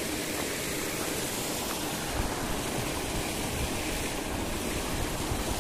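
Paddlewheel aerators in shrimp ponds churning and splashing the water, a steady rushing sound.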